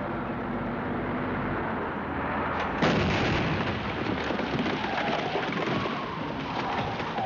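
An army cargo truck's engine runs steadily as it drives. About three seconds in an explosion goes off on the hillside, the loudest moment, followed by the rumble and clatter of rock and debris sliding down the slope.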